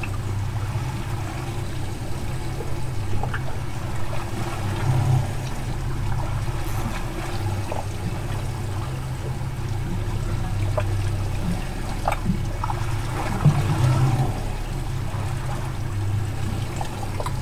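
Water trickling and sloshing over a steady low hum, with a few faint clicks.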